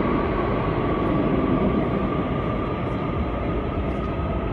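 Santiago Metro AS-14 train running through the tunnel beyond the station. It makes a steady running noise with a whine that rises slightly in pitch.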